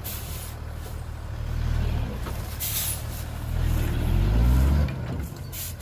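Heavy diesel engine of a dump truck running and revving up around four seconds in, then dropping back, with two short hisses of air, about a second and a half in and near the end.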